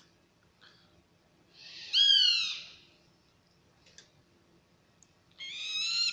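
Eurasian eagle owl chicks calling. About two seconds in comes one loud, harsh screech falling in pitch; from about five and a half seconds, a quick run of shorter repeated calls follows.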